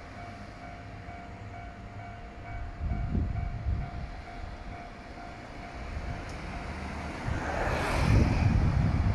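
Outdoor rumble of road traffic and wind, with a single-car diesel railcar approaching in the distance. The rumble swells briefly about three seconds in and grows louder from about seven seconds in.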